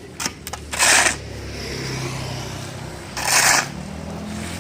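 Two short harsh scraping strokes, about two and a half seconds apart, from concrete patching work on the road, after a couple of sharp clicks at the start. Under them runs a low engine hum that rises a little near the end.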